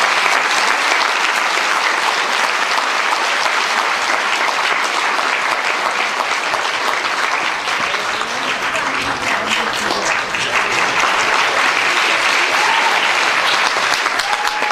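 A banquet audience applauding steadily after a key-to-the-city presentation.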